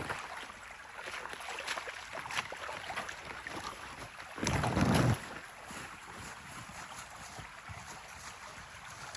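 Footsteps crunching through snow at a steady walking pace over the steady rush of a nearby stream, with one brief loud low rumble about halfway through.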